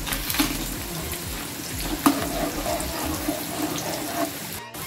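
Payesh simmering in an aluminium pot over a gas burner: a steady bubbling hiss. A single sharp click comes about two seconds in.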